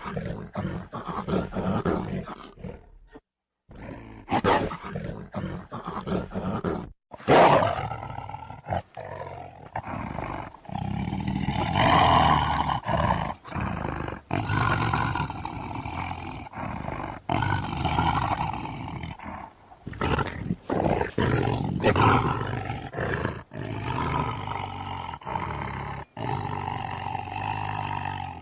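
Tiger roaring and growling, one call after another, with two brief silent breaks in the first seven seconds.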